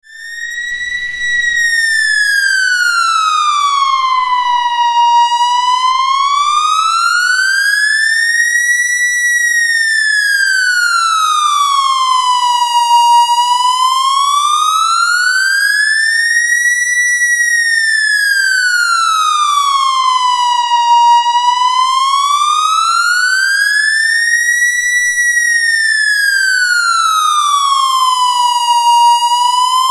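Police siren on a slow wail, its pitch rising and falling smoothly and steadily about once every eight seconds, fading in at the start.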